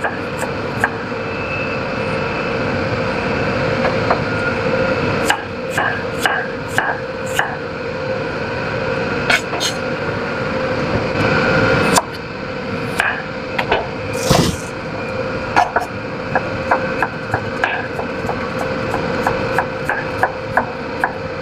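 Chef's knife slicing ginger and then carrot on a cutting board: irregular knocks of the blade on the board, over a steady background hum.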